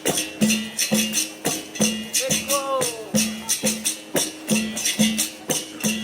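Capoeira roda music: a berimbau plays a steady rhythm of short notes, about two a second, with a rattle and tambourine jingles, and voices singing over it.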